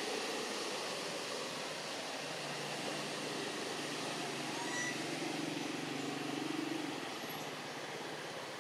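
Steady outdoor background noise with the faint hum of a distant motor vehicle engine, which swells a little and then fades near the end. There are a couple of faint short chirps around the middle.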